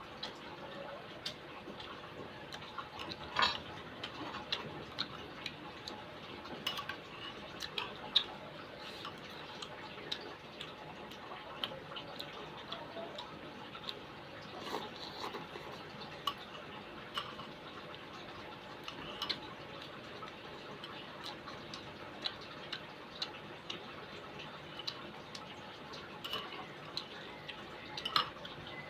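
Eating sounds: a spoon clicking and clinking against a bowl of soto mie, with chewing of the food, as many short irregular clicks over a low steady hiss, a few of them sharper and louder.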